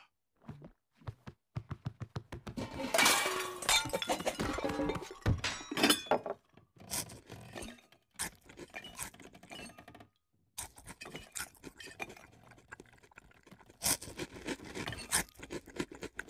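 Cartoon sound effects of a panda scrambling up kitchen shelves: a busy run of thunks, knocks and clinking crockery, densest and loudest a few seconds in. It breaks off briefly about ten seconds in, then goes on as scattered bumps and clinks.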